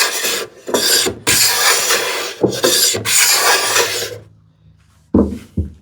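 Low-angle hand plane shearing end grain on a wooden panel: about five rasping strokes, one after another, in the first four seconds, then two short dull knocks near the end.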